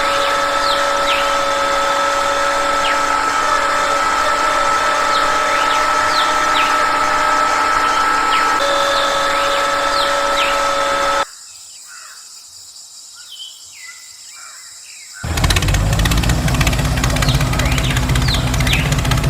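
Birds chirping over a steady drone with two fixed tones. Partway through, the drone drops out for about four seconds, leaving only faint chirps. It then returns with a lower rumble added.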